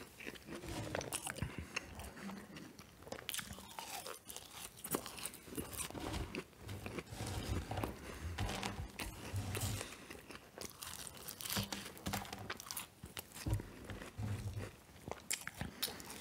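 Close-up chewing and crunching of McDonald's fast food: a person taking bites and chewing with wet mouth sounds and irregular crisp crackles.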